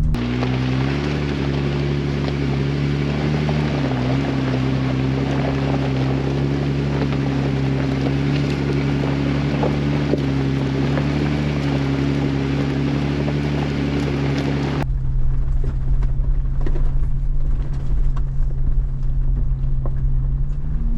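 Jeep engine running at a low, steady speed while crawling along a dirt road, with tyre and gravel noise. About two-thirds of the way through, the sound changes abruptly to a duller, low rumble with small bumps and knocks.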